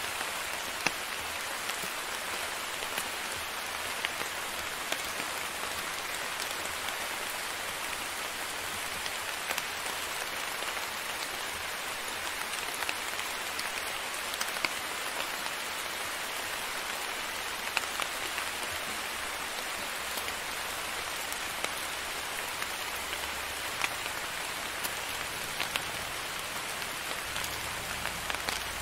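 Steady rain falling, with scattered sharper drop hits standing out now and then.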